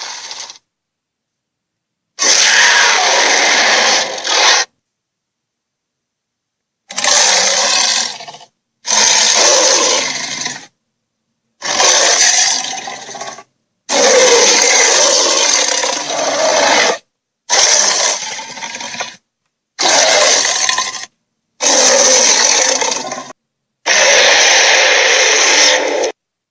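Dragon sound effects: a series of about nine rough, rasping creature roars, each one to three seconds long, cut off abruptly and separated by dead silence.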